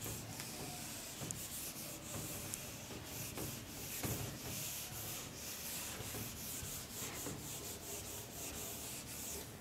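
Handheld whiteboard eraser rubbed across a whiteboard in repeated strokes, wiping off marker writing.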